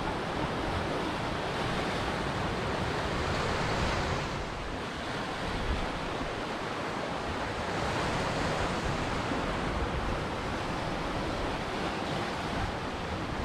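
Ocean surf: waves breaking and washing ashore in a continuous rush that swells up twice, a few seconds apart.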